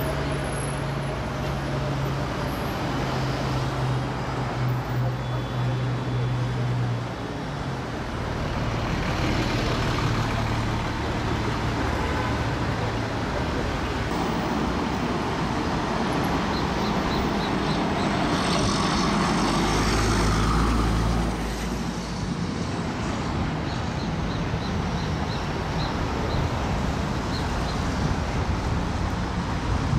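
City street traffic with heavy vehicle engines running; a large vehicle passes close about two-thirds of the way through with a deep rumble.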